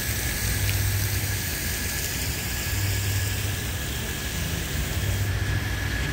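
Cars moving through a wet parking lot: a steady wash of traffic noise with a low engine rumble that swells three or four times.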